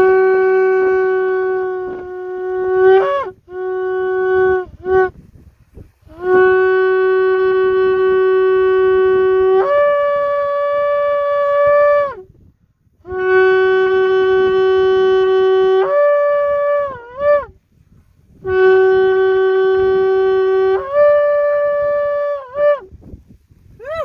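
Shofar (ram's horn) blown in a series of long blasts and a few short ones. Most long notes hold one pitch and then jump up to a higher note before breaking off, and some end in a brief wavering upturn.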